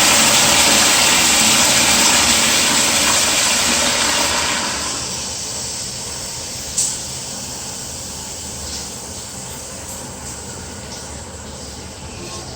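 Toilet flushing: a loud rushing hiss of water that dies away about five seconds in, leaving a quieter steady rush with a low rumble, and a single sharp click partway through.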